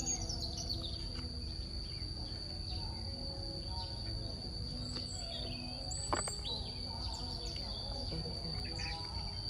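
A steady, high-pitched insect drone with scattered bird chirps over a low background rumble, and a single sharp click about six seconds in.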